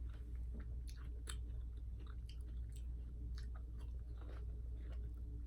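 Chewing close to the microphone: irregular soft mouth clicks and smacks, about one or two a second, over a steady low hum.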